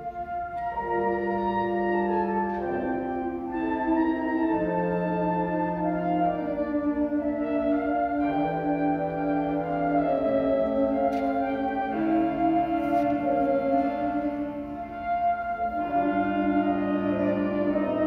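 High school concert band playing a slow passage of held notes from woodwinds and brass, the chords changing every second or two, with a brief softening about fifteen seconds in.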